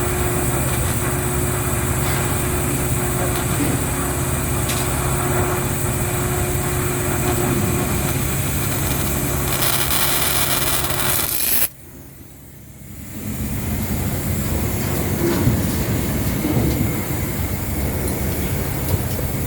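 Steady hum and rush of thermal power plant machinery. About twelve seconds in, the noise drops away suddenly and builds back over a second or two.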